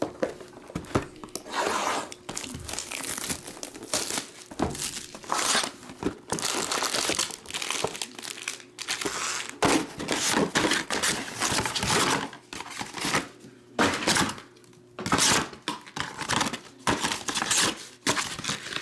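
A cardboard trading-card hobby box being torn open and its foil-wrapped card packs crinkling as they are pulled out and stacked: irregular bursts of tearing and crinkling.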